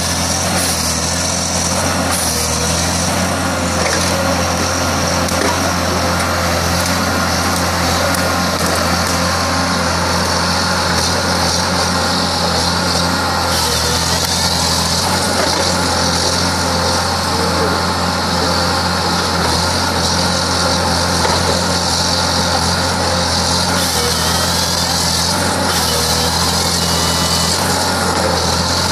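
Timberjack forest harvester's diesel engine running steadily under load while its hydraulic boom swings the harvester head, with a high hiss that grows louder from about halfway through.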